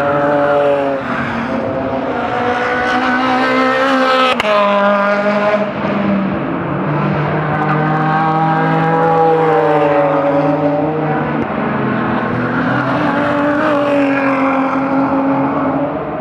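A car's engine pulling hard on track: its pitch climbs, then drops sharply at a gear change about four seconds in, and rises and falls again several times as it accelerates and lifts for corners.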